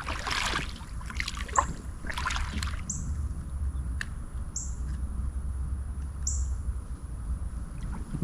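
A bird repeating a short, high, falling chirp about every second and a half. A few brief bursts of rushing noise come in the first few seconds, over a steady low rumble.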